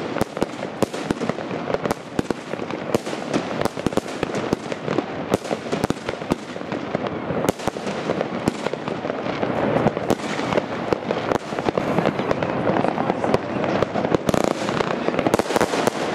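Category II consumer fireworks bursting overhead: a dense, continuous run of bangs, pops and crackle, getting a little louder and busier in the second half.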